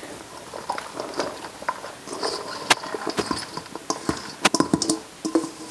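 Chopped raw vegetables (broccoli, carrots, corn, diced potato and cauliflower) pattering and tumbling from a mixing bowl into broth in a slow cooker, with scattered light clicks and a few sharper knocks as the bowl is tipped and scraped out by hand.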